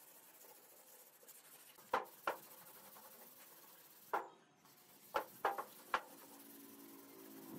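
Hand sanding of a car hood, a faint rubbing broken by six sharp knocks on the metal panel: two about 2 s in, one near the middle and three close together later on.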